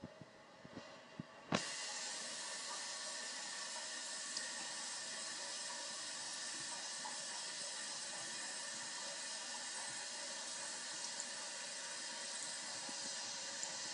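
Water running from a bathroom tap into a sink: a steady hiss of the stream that starts abruptly about a second and a half in, after a few faint clicks.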